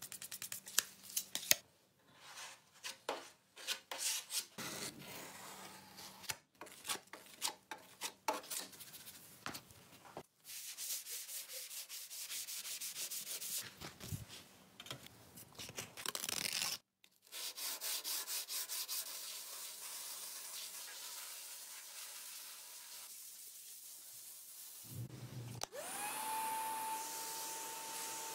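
Hand sanding on sandpaper: quick back-and-forth rubbing strokes in several runs, broken by short pauses. Near the end a whine rises and then holds a steady tone.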